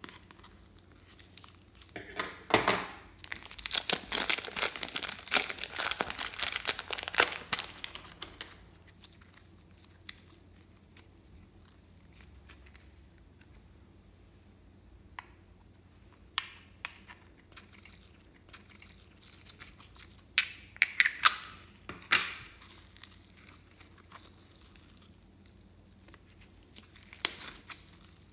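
Slime being squeezed out of a plastic piping bag: a dense crackling and crinkling that starts about two seconds in and lasts about six seconds. Later come scattered short crackles and clicks as the slime is handled.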